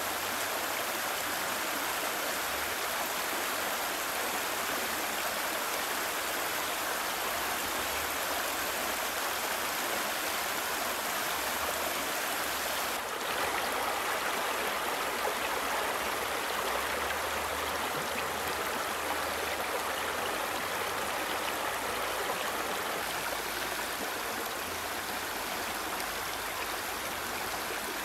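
Shallow river water rushing over rocks and through a low stone weir: a steady, even rush that grows slightly louder about halfway through.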